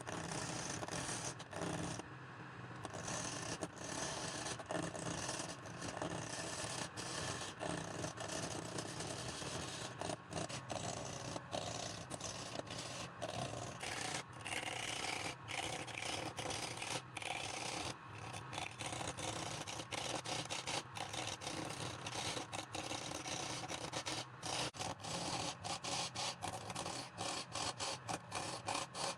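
Wood lathe turning a workpiece, with a tool scraping steadily against the spinning wood in a continuous rasping hiss, broken by many brief gaps.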